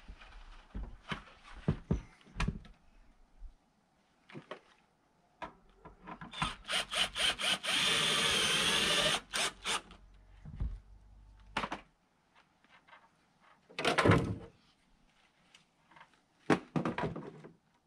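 Cordless drill driving a screw into an awning bracket: a few quick bursts, then a steady run of about a second. Scattered knocks and handling clatter around it, with a loud thump about two-thirds of the way through.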